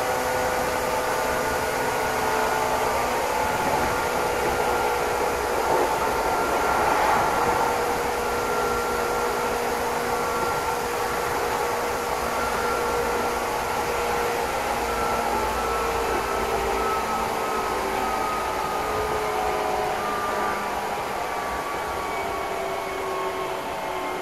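Meitetsu Inuyama Line express train running, heard from inside the passenger car: steady rolling noise with faint whining tones that come and go and shift in pitch, swelling briefly about seven seconds in.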